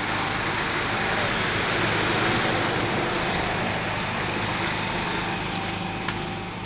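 Steady rushing hiss with a low, even hum beneath it and a few faint ticks, from the stationary train's machinery running; it fades slightly near the end.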